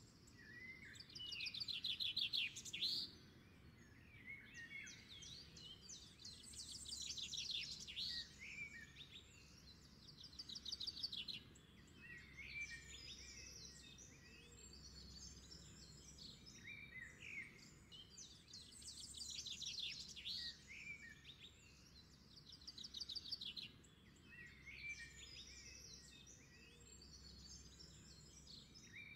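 Several birds chirping and singing, with rapid trills and short whistled notes, faint throughout.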